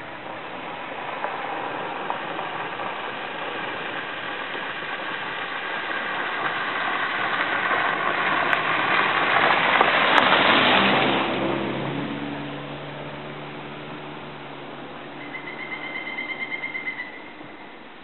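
A motor vehicle passing: its engine noise builds for about ten seconds, peaks, then drops in pitch and fades away. Near the end, a bird gives a short, fast series of calls.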